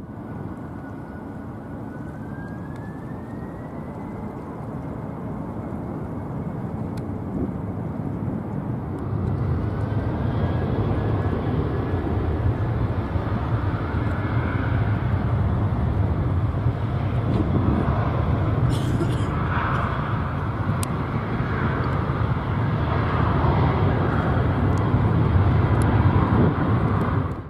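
Boeing 747-400 freighter's four jet engines at takeoff power. A whine rises in pitch a few seconds in as the engines spool up, then a deep jet rumble grows steadily louder as the aircraft rolls, lifts off and climbs.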